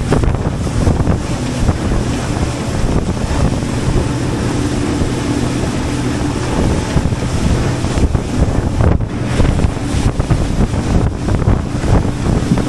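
A boat's engine running steadily under way, with wind buffeting the microphone and water rushing past the hull.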